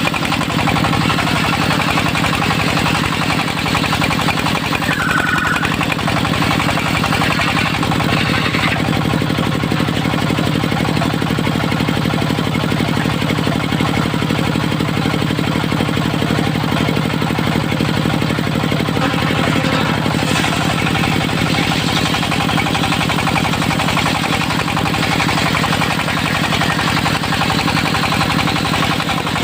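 Dongfeng diesel engine running steadily, powering a homebuilt mobile circular sawmill.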